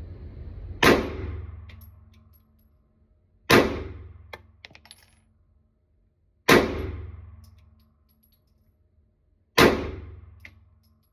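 Smith & Wesson M&P9 Shield Plus 9mm pistol fired four times, single shots about three seconds apart, each shot ringing on with a long echo in the indoor range.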